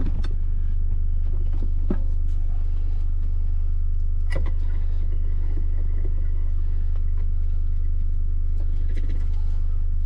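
Steady low electric-motor hum from the Cyclone key-cutting machine, with a few light metal clicks as a key is handled in the vise.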